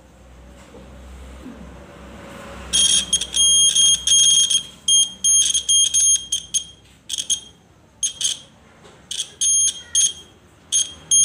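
Piezo buzzer of a homemade buzz-wire game sounding a high-pitched electronic tone in irregular on-off bursts from about three seconds in, some short, some over a second long. Each burst is the wire wand touching the bent steel track wire and closing the circuit.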